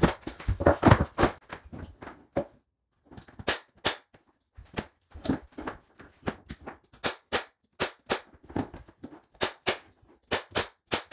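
Pneumatic finish nailer firing nails through baseboard into the wall studs: a long run of sharp shots, about two a second, starting about three seconds in. Before it come a few quick knocks of the board being handled and set against the wall.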